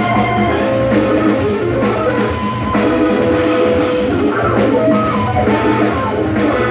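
A live jazz organ trio playing: Hammond organ, electric guitar and drum kit, with single-note melody lines over a steady bass, heard from the audience seats of a theatre.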